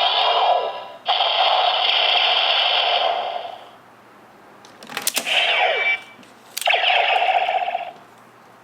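Electronic sound effects played through a DX Neo Decade Driver toy belt's small speaker: a long buzzing effect, then a sharp click about five seconds in followed by a falling sweep and one more short burst of effect.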